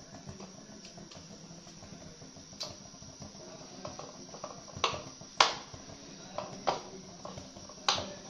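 A spoon working through thick gram-flour batter in a bowl, with about five sharp clicks of the spoon against the bowl, the loudest a little past the middle.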